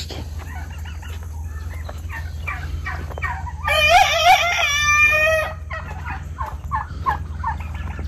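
Domestic turkeys calling: one loud, warbling gobble about four seconds in, lasting about a second and a half, among many short, quieter calls from the flock.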